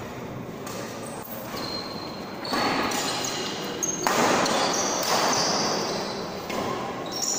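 Badminton rally: rackets striking the shuttlecock and shoes squeaking on the court floor, getting louder about two and a half seconds in.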